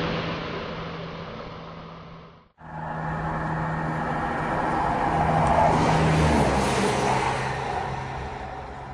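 Diesel multiple unit engine sound for a Class 170 Turbostar: a steady engine drone that fades away, cuts off abruptly about two and a half seconds in, then starts again, swells and fades.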